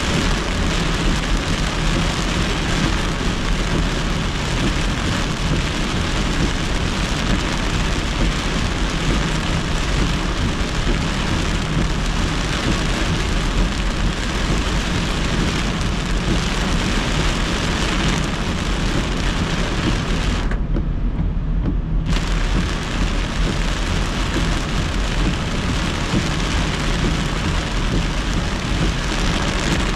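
Heavy rain hitting a moving car in a severe thunderstorm, over a steady low rumble from the car on the wet road. The rain noise drops out for about a second and a half about two-thirds of the way through, leaving only the low rumble.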